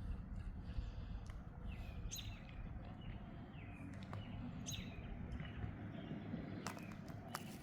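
Birds chirping in short calls that fall in pitch, heard a few times over a steady low rumble. Small clicks of handling are heard now and then, with a cluster near the end.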